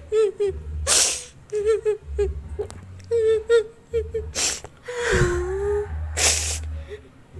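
A person crying: broken, wavering sobs and a long falling wail, with sharp sniffling breaths about one, four and a half and six seconds in. It is grief over a pet that has just died.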